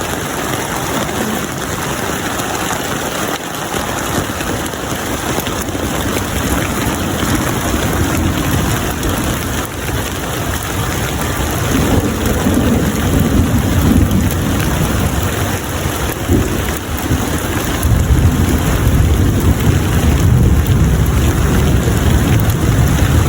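Steady heavy rain falling, with a deep low rumble that swells about halfway through and again over the last few seconds.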